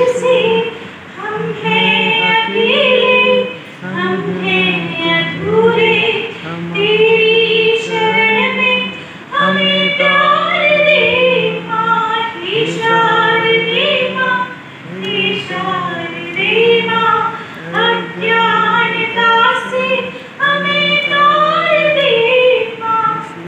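A woman singing a devotional prayer into a microphone and public-address system, in phrases of a second or two separated by short breaths, with a steady low note held underneath.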